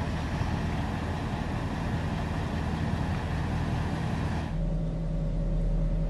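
Outdoor noise with a low rumble, then, after a cut about four and a half seconds in, the steady low hum of a 2007 Chevy Silverado 1500 idling, heard from inside the cab.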